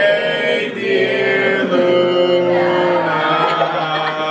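A small group of people singing a birthday song together in long held notes, and singing it badly.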